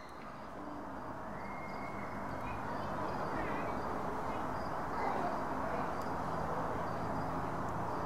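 Steady outdoor background noise with a few faint high chirps, growing louder over the first few seconds.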